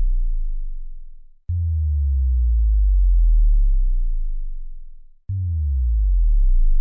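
Synthesized bass drop sound effects: deep sine-like bass tones that start suddenly and slide downward in pitch, fading out over a few seconds. The tail of one fades near the start, a new drop hits about one and a half seconds in, and another hits a little after five seconds.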